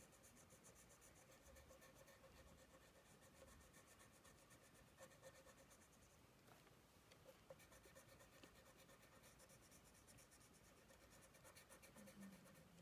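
Faint scratching of a crayon rubbed quickly back and forth on paper while colouring in.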